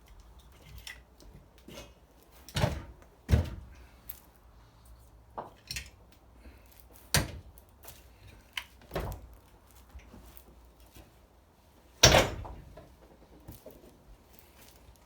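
Irregular knocks and clunks of heavy transformer parts being handled and set down on a workbench, about seven separate hits with the loudest near the end.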